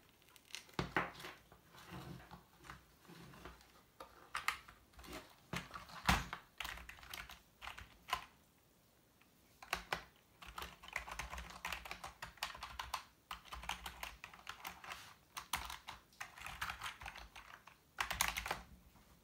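Typing on a Panteon gaming keyboard: runs of rapid key clatter through the second half, after scattered single clicks and knocks in the first half and a short pause.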